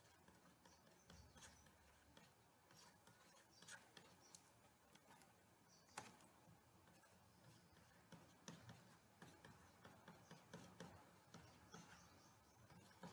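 Faint ticks and taps of a stylus writing on a pen tablet, with one sharper click about six seconds in.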